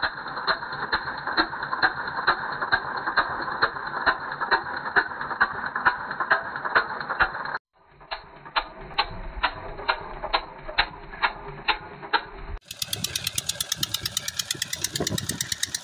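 Petter diesel engine driving a water pump, knocking in an even beat of about two a second over the rush of water gushing from the outlet pipe into a brick tank. The sound cuts off abruptly twice, and after the second cut the beat is faster and sharper.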